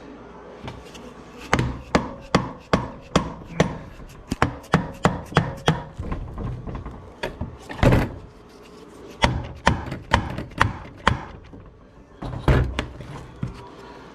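Series of sharp knocks, about two to three a second, with a heavier blow in the middle and another run of knocks after it: a dead blow hammer tapping the aluminium crankcase of a Suzuki LTZ400 engine to work the case halves apart.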